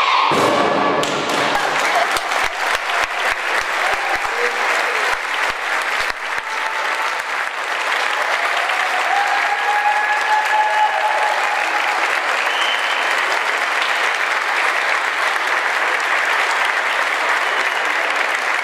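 An orchestra's closing chord breaks off about a second in, and audience applause follows. It starts as separate claps and fills in to steady clapping.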